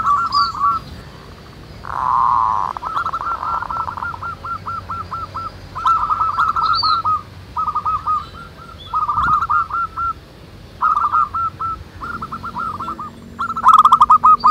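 Zebra doves cooing: bouts of rapid, hooked cooing notes in overlapping series, with short pauses between bouts.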